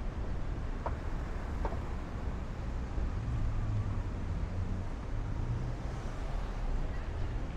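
Street traffic: cars passing with a steady low engine and tyre rumble that swells a little from about three seconds in.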